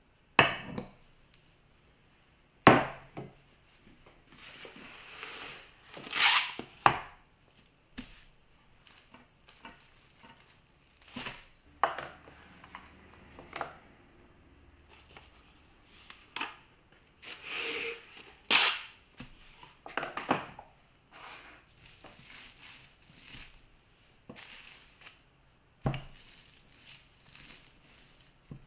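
Plastic cling wrap crinkling and rustling in irregular bursts as chocolate tart dough is handled and rolled out under it with a marble rolling pin. A few sharp knocks stand out, the loudest about three seconds in.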